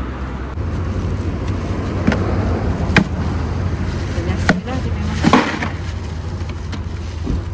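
A vehicle's steady low engine and road rumble, with a few sharp, irregular knocks and clicks over it.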